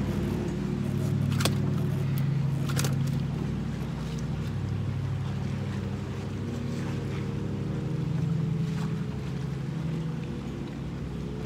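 Boat motor running steadily with a low hum, swelling a little twice. Two sharp clicks sound in the first few seconds.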